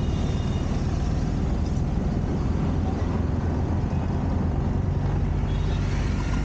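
Auto-rickshaw engine running steadily as it drives along, heard from inside the open-sided cabin, with road, wind and surrounding traffic noise.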